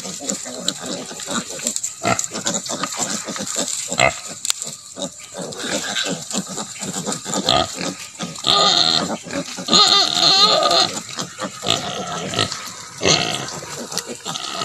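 Native pigs, a sow and her suckling piglets, grunting in many quick short grunts while the piglets nurse. Loud piglet squeals come twice, a little past halfway.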